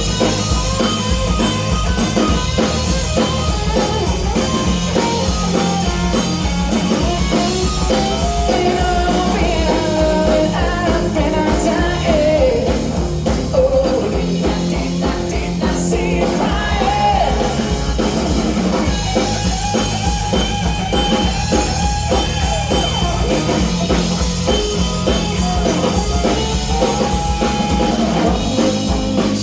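A live rock band playing: singing over electric guitar, bass and drum kit.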